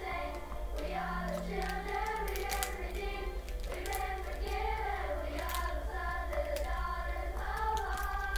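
A singing voice carrying a melody with music, over a steady low hum.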